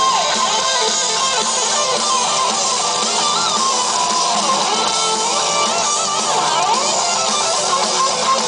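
Heavy metal band playing live: distorted electric guitars, with a lead guitar line bending up and down in pitch over the band.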